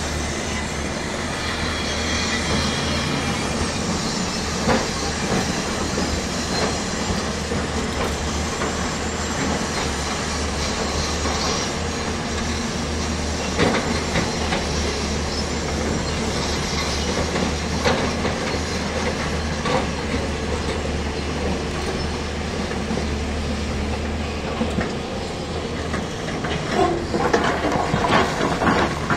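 Hydraulic excavators' diesel engines running with a steady low drone, with scattered clanks and knocks of rock against steel buckets and truck beds, coming thickest near the end.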